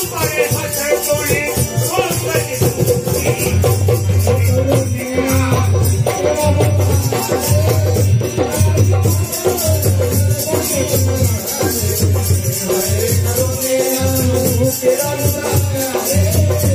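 Live folk music: a hand drum beating a steady rhythm, a rattling percussion instrument keeping time over it, and a wavering melody line.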